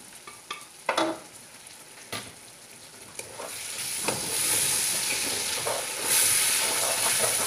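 Bacon, sliced calabresa sausage and tomato sauce sizzling in an aluminium pot as a spoon stirs them. A few knocks and clicks of utensils come first, the loudest about a second in, and the sizzle swells from about four seconds in as the stirring spreads the sauce over the hot fat.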